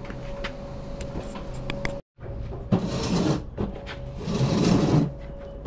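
Scraping and rubbing of items being handled and shifted: a few light clicks, then two loud scrapes, each under a second long, after a brief cut-out about two seconds in.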